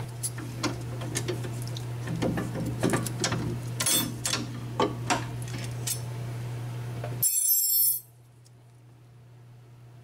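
Metal clicks and clinks of a rear brake caliper being worked over new brake pads and their anti-rattle clips, over a steady low hum. The caliper is binding, a little too tight to slide on. A denser metallic rattle comes just before the hum cuts off abruptly about eight seconds in.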